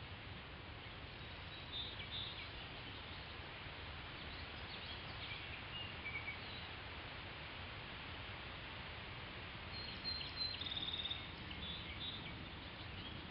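Birds calling with short high chirps on and off, with a buzzy trill about ten seconds in, over steady low outdoor background noise.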